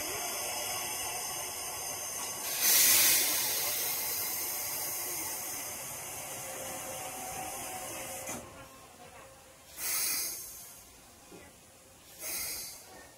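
Steam locomotive hissing steam: a steady hiss with one loud burst about three seconds in. The hiss then dies down and gives way to two shorter bursts near the end.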